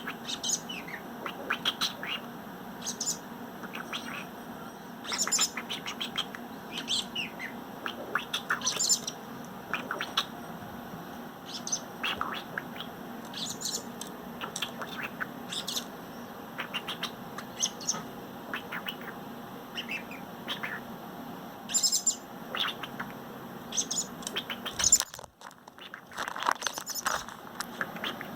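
A robin chirping: many short, high chirps and calls at irregular intervals over a steady low hum.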